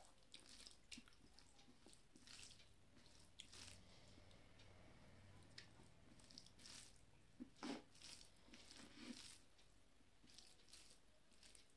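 Faint, soft wet squishes and small clicks of fingers mashing and mixing rice with egg curry on a plate, along with quiet chewing.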